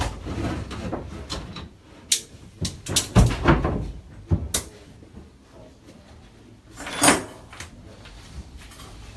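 Irregular knocks, clicks and scrapes of tools and pipework being handled in a plumbing workshop, with a cluster of sharp knocks about three seconds in and a loud one about seven seconds in.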